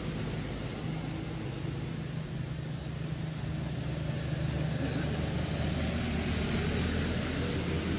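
A motor engine running steadily, a low even hum, over a constant outdoor hiss.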